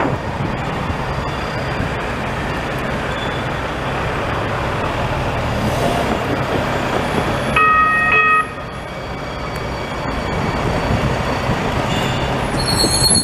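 NJ Transit light-rail tram approaching and rolling into a station, with a steady rumble of its running. A single short horn toot sounds about two-thirds of the way in, and a high-pitched squeal starts near the end as the tram draws close.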